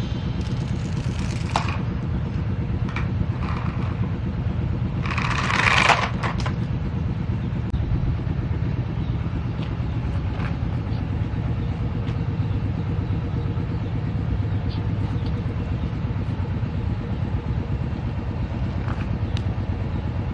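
A motor vehicle's engine running steadily at idle, a low even rumble, with a few light clicks and one brief louder clatter about five seconds in.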